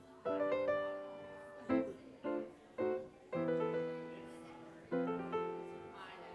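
Grand piano played solo: chords and melody notes struck every second or so, each ringing and fading before the next.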